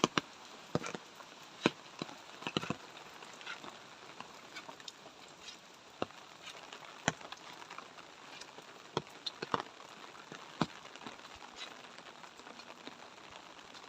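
Light rain: a steady soft hiss with irregular, sharp drop hits close by.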